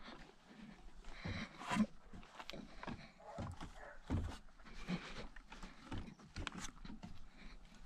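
Irregular knocks, creaks and scuffs of boots and hands on a weathered wooden hunting tower's platform and ladder as someone climbs down, with gear and clothing rustling.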